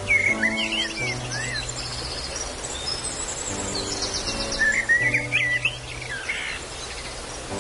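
Songbirds chirping and calling in two quick bouts, at the start and again about halfway through, over a steady rush of falling water. Soft piano music plays underneath.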